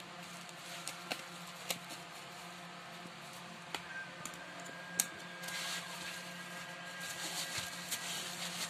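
A few sharp scissor snips cutting through plastic bubble wrap, then the bubble wrap crinkling and rustling as it is pulled open by hand for the last few seconds.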